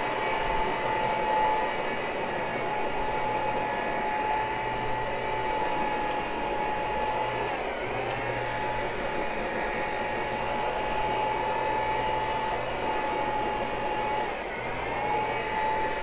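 Electric floor-cleaning machine motor running steadily with a high whine; its pitch sags briefly and recovers twice, about halfway through and near the end.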